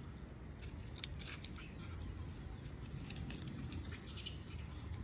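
Light scattered clicks and rustles over a steady low rumble, with small clusters about a second in and again around three to four seconds in.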